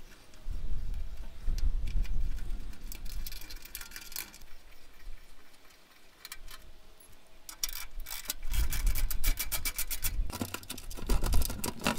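A wing guard panel being worked loose and pulled off the underside of an ARB bull bar by hand. There is rubbing and bumping, then a quick run of clicks and rattles over the last few seconds.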